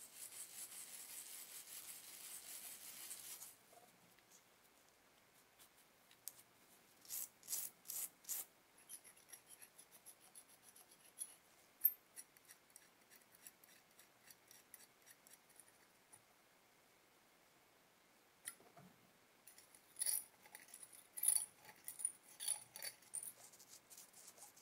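Close-up clicks, taps and light scraping of small metal parts: a thin steel pick working at the burner screw of an old brass lighter, the parts clicking as they are handled, with faint high metallic rings. It opens with a few seconds of steady hiss, and the clicking comes in two busy stretches with a quiet gap between.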